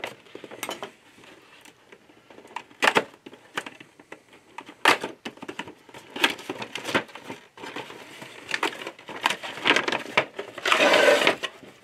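Cardboard box being cut open with a knife and its plastic-windowed packaging handled: a run of sharp crackles, clicks and crinkles, with a longer rustle about a second before the end.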